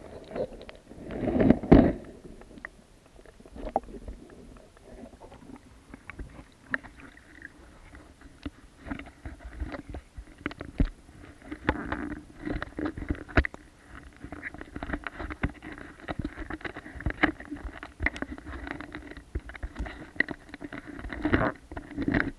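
Water sloshing and splashing around a waterproof camera housing as it is moved at and just below the surface of shallow water, with many small knocks and clicks from handling. The loudest splash comes about a second and a half in.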